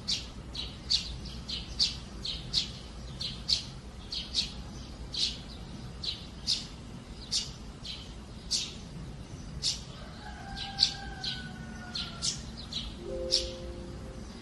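Sparrows chirping: short, sharp chirps repeating about twice a second.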